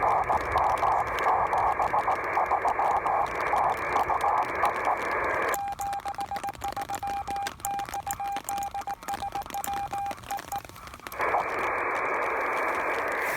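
Radio receiver audio on a 6 cm microwave rain-scatter contact: fluttering hiss, then about six seconds in the hiss cuts out and a single steady tone is keyed on and off as Morse code for about five seconds. The hiss comes back near the end.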